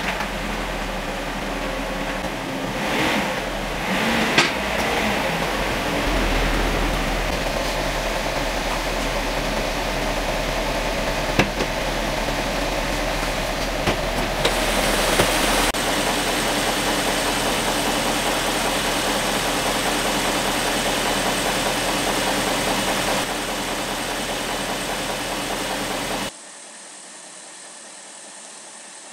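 BMW E38 740i's 4.4-litre M62TU V8 running at a steady idle, warmed up, with a few short knocks and clicks over it. Near the end the sound drops suddenly to a much quieter, duller steady hum.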